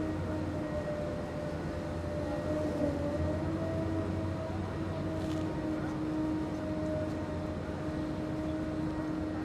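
Kirow Multi Mover heavy transporter running as it rolls slowly on its large tyres: a steady mechanical drone with a two-note whine that wavers slightly in pitch, over a low hum that drops away about half a second in.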